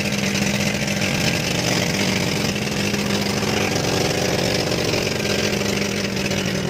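An outrigger bangka's engine running steadily while the boat is under way: a loud, even drone.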